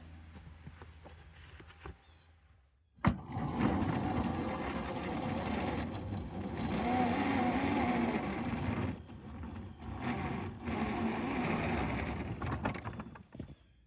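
Vehicle motor on a small railroad starts up suddenly with a click about three seconds in and runs loudly with a wavering whine, dipping briefly twice, as it drives a Russell snow plow along the track through deep wet snow.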